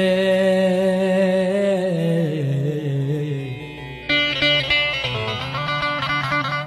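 A man sings a long, wavering held note that slides down in steps over the strummed bağlama (saz). About four seconds in the voice stops and the bağlama plays a quick picked run on its own.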